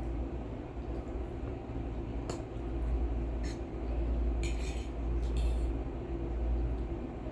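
Eating utensils clinking and scraping against a bowl of instant noodles, a few sharp clinks and a short hissing scrape near the middle, over a steady low hum.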